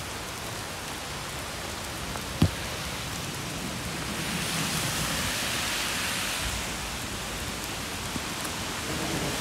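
Heavy rain falling on pavement and puddles, a steady hiss that swells louder for a couple of seconds around the middle. A single sharp knock sounds about two and a half seconds in.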